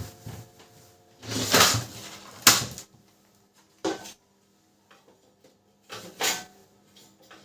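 Plastic casing parts of a Canon LBP 6030 laser printer being handled and fitted back together: a few separate knocks and clatters, the sharpest about two and a half seconds in, over a faint steady hum.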